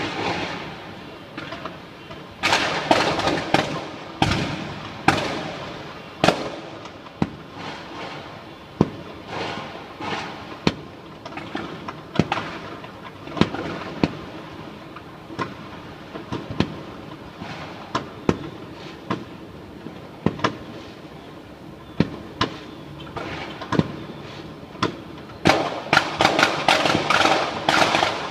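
Fireworks and firecrackers going off across a city: scattered sharp bangs at irregular intervals, each trailing off. Near the end a dense, rapid crackling sets in.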